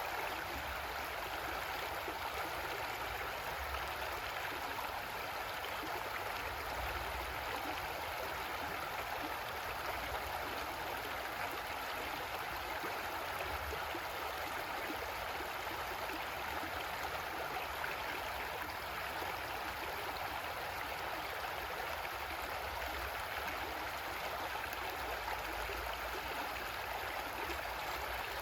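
Creek water flowing and gurgling over rocks in a steady, even rush, with a low rumble underneath.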